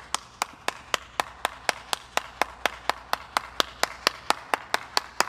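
One person clapping their hands steadily, about four claps a second.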